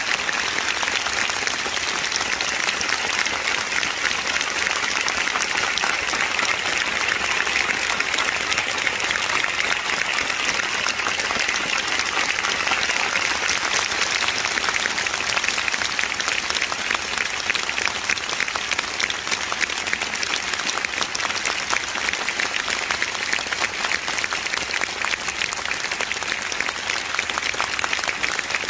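Large arena audience applauding steadily, a dense, even crackle of many hands that does not let up.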